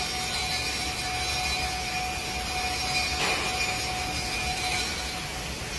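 Steady hiss of falling rain, with a faint steady high tone underneath.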